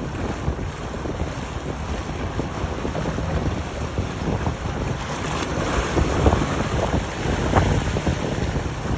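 Wind buffeting the microphone over the sound of powerboats running through choppy water, the gusts growing louder in the second half.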